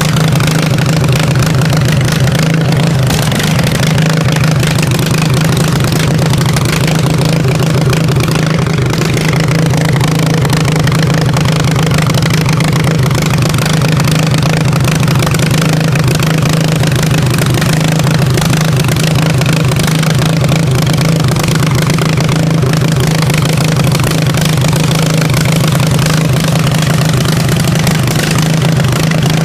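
Riding lawnmower's engine running steadily at an even speed, without revving.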